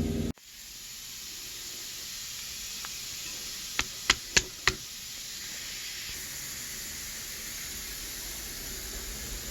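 A steady hiss, with four sharp knocks in quick succession about four seconds in.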